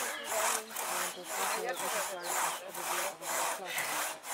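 Hand saw cutting back and forth through a wooden log, in even strokes of about two a second.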